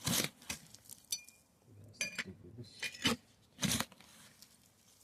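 Digging in dry garden soil while harvesting potatoes: five or six short scraping, crunching strokes with pauses between.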